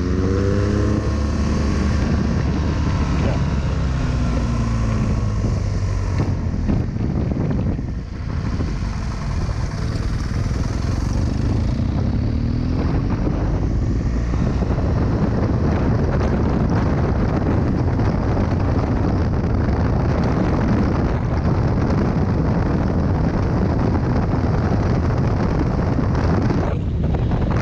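BMW R 1200 GS Adventure boxer-twin motorcycle running at speed, its engine note rising as it accelerates near the start and again about 12 seconds in, with heavy wind rushing over the microphone. The sound eases briefly about 8 seconds in.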